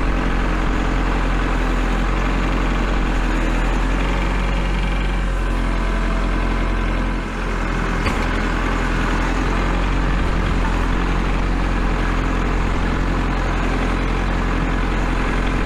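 Kubota L4701 tractor's diesel engine running steadily under load as it pushes snow with a front snow pusher. The sound dips briefly about seven seconds in.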